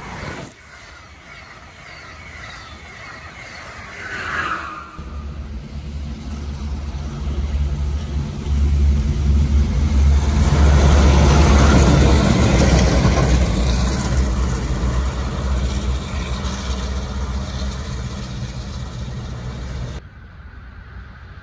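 A pair of EMD GP15 diesel locomotives passing, their engines' low drone building to a peak and then easing off. The sound cuts off suddenly near the end.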